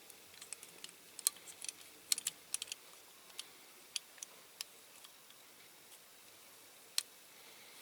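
Small sharp clicks of tiny diecast toy car parts being handled and pressed into place while fitting the doors: a quick cluster of ticks in the first three seconds, then a few scattered single clicks, the last about seven seconds in.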